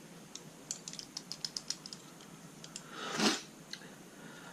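Small sharp clicks and ticks of a puzzle padlock's parts being handled and tried, a quick irregular run of them, then a short louder rush of noise about three seconds in.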